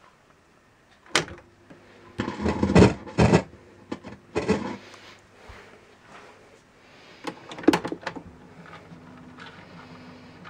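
Sharp clicks and heavy clunks as the push-buttons on a 1975 Grundig Rosita radiogram are pressed and the set is handled, with a faint low hum underneath.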